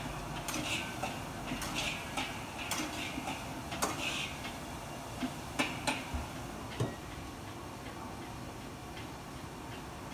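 Metal ladle clinking and scraping against a steel wok as egg and rice are stir-fried. There are about a dozen irregular sharp clinks in the first seven seconds, then only a steady background noise.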